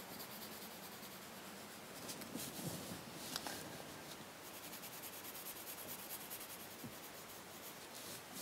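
Graphite pencil shading on drawing paper: faint, repeated scratching strokes of the lead hatching a dark area.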